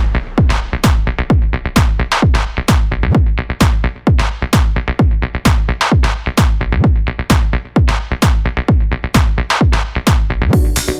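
Electronic dance music with a fast, steady drum-machine beat. A hissing layer joins the beat near the end.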